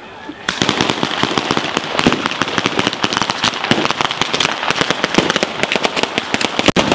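Batteria alla bolognese: a ground-laid chain of firecrackers going off in a rapid, dense volley of sharp bangs. It starts abruptly about half a second in and keeps up without a pause.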